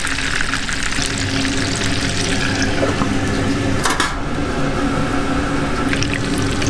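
Hot oil sizzling and crackling around a meat patty frying in a pan, with an abrupt change about four seconds in to food bubbling in deep oil in a wire strainer. A steady low hum runs underneath.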